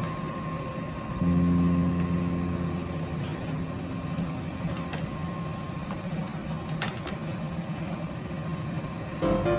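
Steady low mechanical hum of a kitchen appliance, stronger for a couple of seconds after the start, with two light clicks later on.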